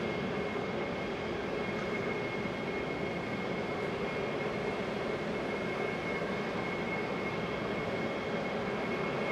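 Boeing 777-200LR's GE90 jet engines running at low power as it taxis: a steady rumble with a thin, even high whine.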